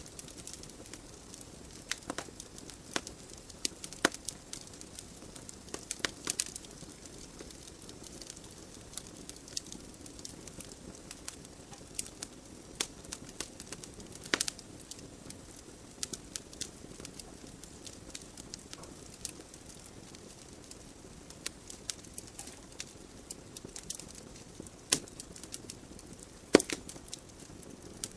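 Wood fire burning in a fireplace: a steady soft hiss with irregular sharp crackles and pops from the burning logs, one louder pop near the end.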